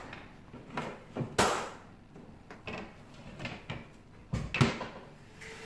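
Hammer knocking on hardwood floorboards: several sharp knocks at uneven intervals, the loudest about a second and a half in and again about four and a half seconds in.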